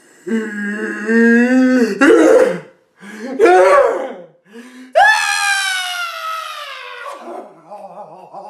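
A man's voice making exaggerated comic noises: a strained, held groan through clenched teeth, short wavering cries, then a long high scream about five seconds in that slowly falls in pitch and trails off into lower moaning.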